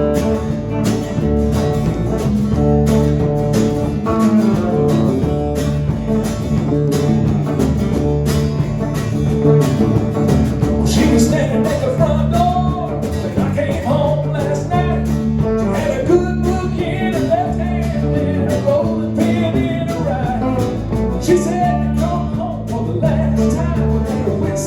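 Country band playing an instrumental intro: guitars over bass and a steady drum beat, with a lead guitar picking a melody.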